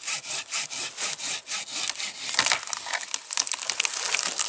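Silky Gomboy 300 folding saw cutting through a fresh birch trunk in quick, even strokes, about five a second. A little over two seconds in the strokes give way to irregular cracking and splintering of the wood as the bent trunk breaks and goes down.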